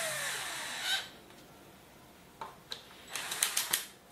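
Cordless drill running into a wooden frame, its motor pitch rising and then falling as it winds down and stops about a second in. Near the end come a couple of clicks and then a quick run of short, loud bursts from the drill.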